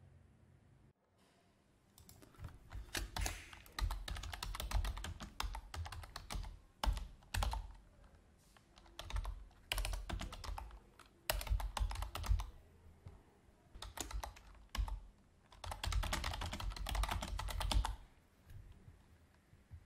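Typing on a computer keyboard: bursts of rapid keystrokes with short pauses between them, starting about two seconds in.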